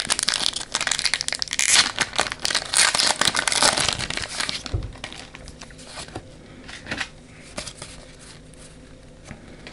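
Foil wrapper of a Pokémon booster pack crinkling and tearing as it is opened, loud and dense for about the first four and a half seconds. After that come softer rustles and clicks of the cards being handled.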